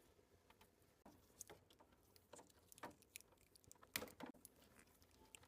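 Faint, scattered small clicks and rustles of hands working with electrical wire while joining an air conditioner's signal cable, a little busier about four seconds in.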